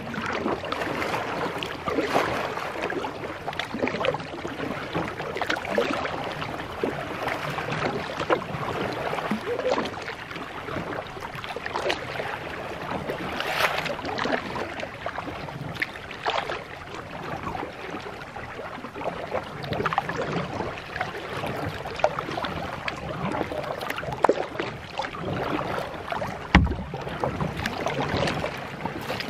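Plastic kayak hull cutting through water, a steady rushing and lapping at the bow, with paddle splashes about every two seconds.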